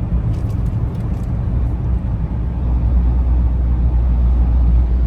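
Steady low rumble of a Fiat Mobi's engine and tyres on the road, heard from inside the moving car's cabin, with a few faint clicks in the first second.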